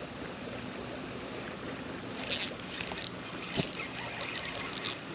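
Fishing reel being cranked on a retrieve: irregular spells of high-pitched clicking and rattling begin about two seconds in, with a single knock near the middle, over steady outdoor background noise.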